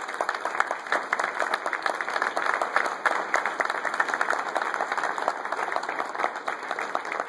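Audience applauding, a dense, steady clapping throughout.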